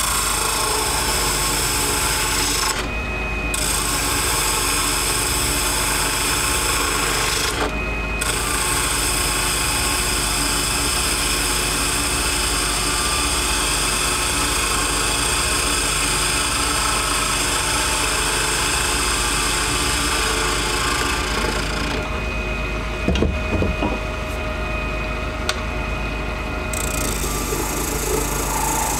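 Wood lathe running while a turning gouge cuts into a spinning cast acrylic resin duck-call blank, a steady scraping cut over the motor's hum. The cut stops briefly about three and eight seconds in, and again for several seconds near the end, leaving just the lathe running.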